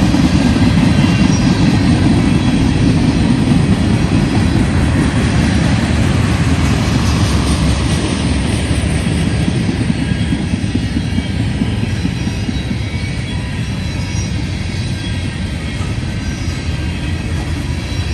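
Freight cars of a long manifest train rolling past, a steady heavy rumble of wheels on rail with faint high wheel squeals, easing a little about halfway through.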